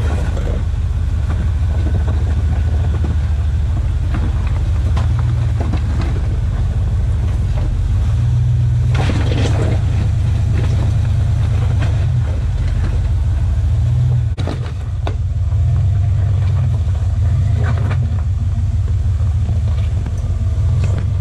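Lifted 1990 Chevy half-ton Z71 truck's engine rumbling at low speed while crawling over rocks, its revs rising and falling in steps as the throttle is worked, with a few knocks and clatters from the tyres and rocks.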